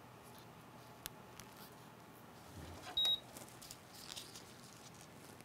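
A short, high electronic beep about three seconds in, with a sharp click about a second in, over the faint steady hiss of a solder fume extractor.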